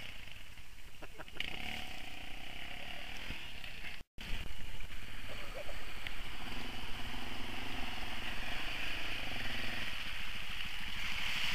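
Quad bike (ATV) engine running and revving as it is ridden through mud toward the microphone. The sound cuts out briefly about four seconds in, then returns louder as the quad comes closer.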